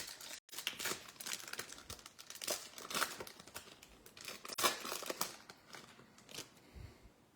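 Trading-card pack wrapper crinkling and tearing as it is opened, in irregular crackles.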